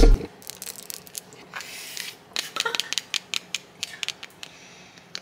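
Long acrylic fingernails tapping and scratching on a plastic spice shaker of black pepper, close-up ASMR style: quick irregular clicks, with a short scratchy rub about two seconds in.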